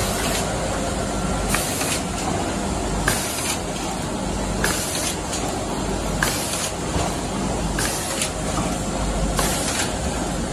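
HF 1080 automatic hot foiling machine running, a steady mechanical noise with a short hiss and click about every second and a half.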